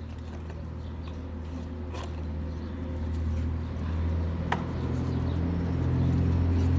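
A motor vehicle's engine running with a low hum, growing steadily louder as it draws near. A single sharp click about halfway through.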